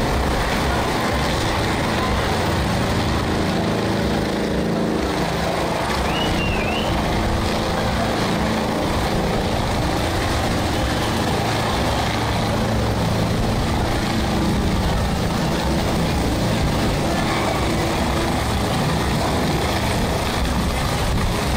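Low-flying helicopter's rotor and turbine engine, a loud steady drone overhead.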